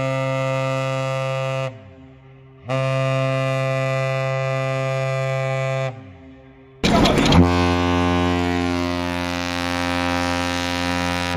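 Ship's horn sounding two long blasts, each about three seconds, with a gap of about a second between them. About seven seconds in a different ship's horn starts and holds, with more background noise around it.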